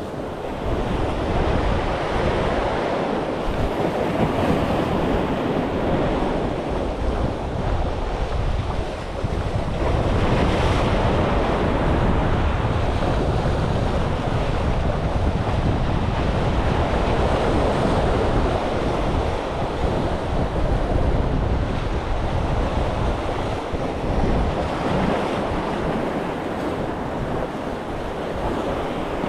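Sea waves surging and washing against concrete breakwater blocks, rising and falling with each wave, with steady wind buffeting the microphone.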